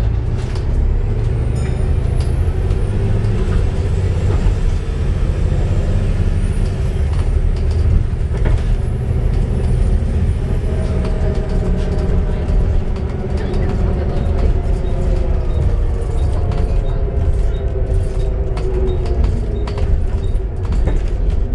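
Volvo B7TL double-decker bus under way, its engine and drivetrain running with a whine that climbs slowly as the bus gathers speed: the bad axle sound of a worn rear axle. Short rattles and clicks run through it.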